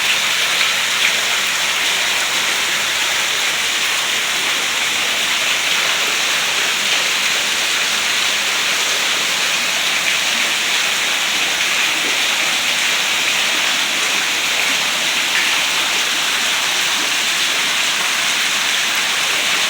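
Heavy rain falling steadily, a constant even hiss of drops on surfaces.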